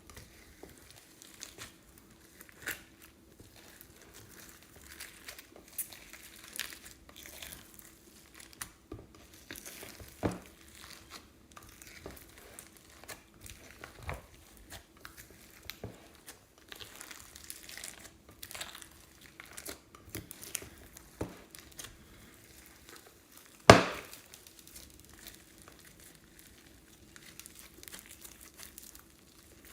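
Plastic piping bags of slime crinkling and crackling as they are squeezed and handled, with scattered soft clicks and pops. One loud, sharp knock about three quarters of the way through, over a faint steady hum.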